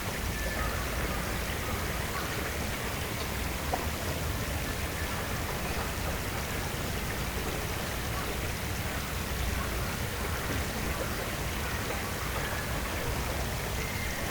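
Steady outdoor ambience: an even hiss of water with a low rumble beneath it, and a few faint, thin bird calls now and then.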